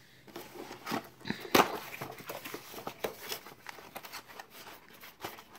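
Cardboard board-game box being handled and opened by hand: irregular scraping, rustling and small knocks, with one sharper knock about a second and a half in.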